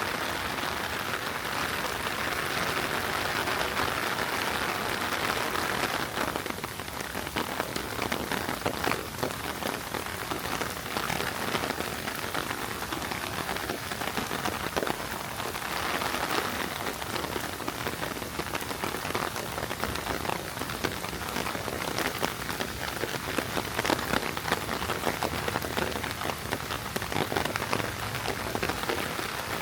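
Heavy rain falling steadily, with many close individual drops tapping sharply. A louder hiss swells over the first six seconds and again briefly about sixteen seconds in.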